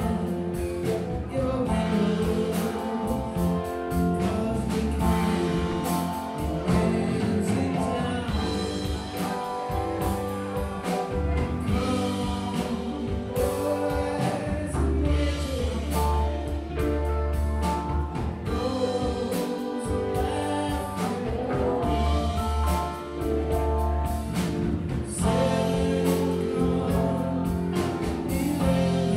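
Live rock band playing: electric guitars, keyboard and drum kit, with a singer's voice over them.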